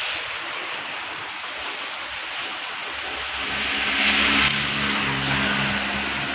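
Steady rain hiss with a motor vehicle's engine coming in about three seconds in and swelling loudest about a second later, as it passes on the wet road.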